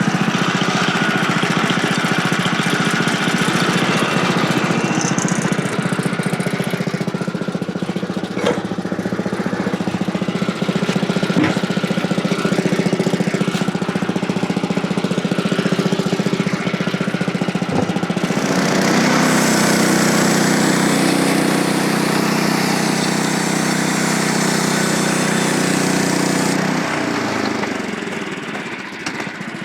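Small gasoline engine of a portable bandsaw sawmill running steadily at high speed. About two-thirds of the way in, a higher hiss joins it for several seconds. Near the end the engine winds down.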